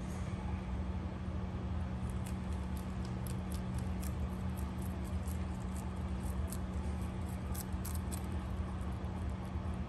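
Rabbit chewing lettuce, making quick, irregular crisp clicks over a steady low hum.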